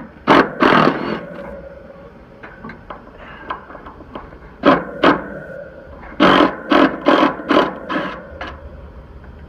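Wrench working loose the half-inch mounting nuts on an HVAC condensing unit's compressor: short bursts of metal clanking and scraping, a pair near the start, a couple about five seconds in, and a quick run of strokes a little later, over a faint steady hum.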